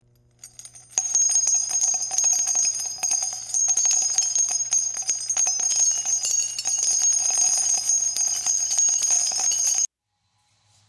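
Jingle bells shaken rapidly, a dense jingling over a steady high ringing. It starts about a second in and cuts off suddenly near the end.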